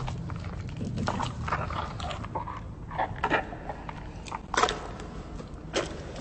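A young hippopotamus chewing a mouthful of strawberry jelly: wet smacks and clicks of its lips and jaws at irregular intervals.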